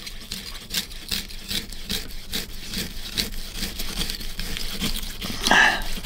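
Kitchen knife sawing back and forth through a frozen block of chili con carne on a plastic chopping board: quick, evenly repeated scraping strokes, with one louder stroke near the end.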